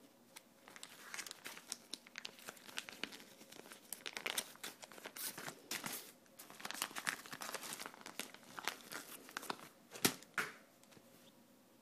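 Thin clear plastic bag crinkling and crackling as it is handled, in a dense run of small crackles from about a second in until shortly after ten seconds, with one sharper, louder snap near the end.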